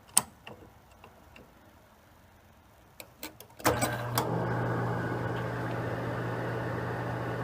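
Several clicks from the controls of an Amana Radarange microwave oven, then about three and a half seconds in the oven switches on and runs at full power with a steady low hum from its high-voltage transformer and the rush of its cooling fan.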